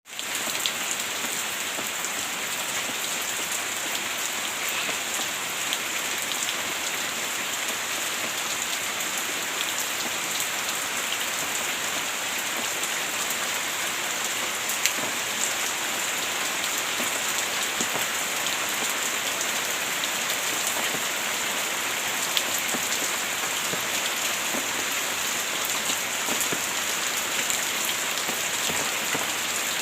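Heavy rain falling steadily: a dense, even hiss with many small drop hits and a few sharper ones scattered through it. It fades in quickly at the very start.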